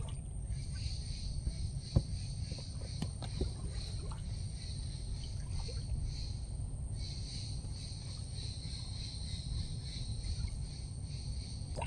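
Quiet mangrove ambience: a steady high insect buzz that stops briefly near the middle, over soft water sounds from a folding canoe gliding along. A single sharp knock about two seconds in.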